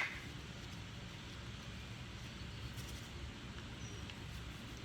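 Quiet room tone: a low steady hum with no distinct event.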